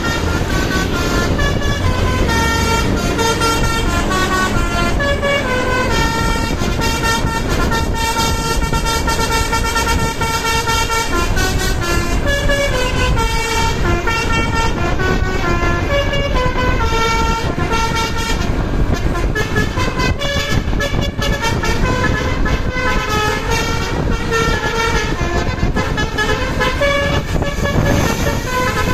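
Indonesian bus 'telolet' multi-tone horns playing a long run of stepping, tune-like melodies over the low rumble of bus engines and traffic.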